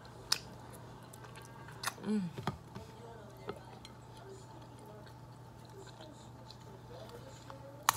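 A few sharp clicks and cracks of king crab shell being picked apart by hand, over a steady low hum. A short voice sound comes about two seconds in.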